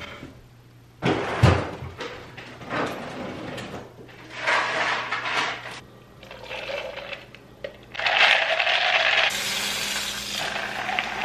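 Glass and plastic cups knocking and clinking as they are handled, the loudest knocks about a second in, with liquid poured into a plastic tumbler. A kitchen tap then runs steadily for about four seconds near the end and cuts off.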